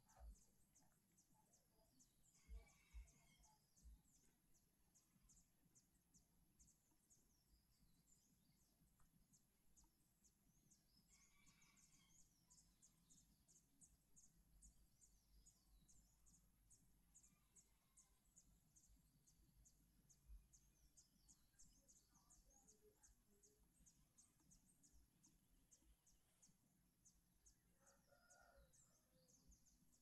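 Near silence: faint outdoor ambience with a steady run of quick, high-pitched chirps, two or three a second, and a few brief faint bird calls.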